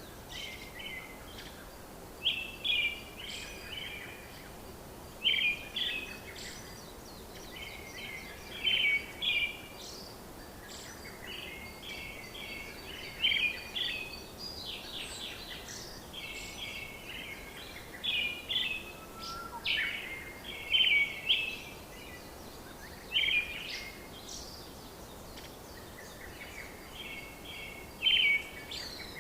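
Bird chirping in short repeated phrases every few seconds over a steady background hiss.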